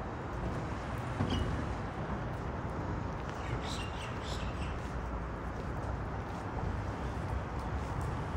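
A few short, high bird chirps, once about a second in and a cluster around four seconds, over a steady low rushing background noise.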